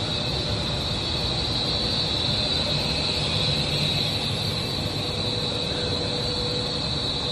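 Blown film extrusion machine for plastic bag film running steadily: an even mechanical noise with a high hiss over it and a faint steady tone.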